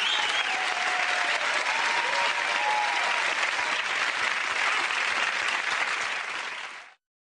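Television studio audience applauding steadily, cutting off suddenly near the end.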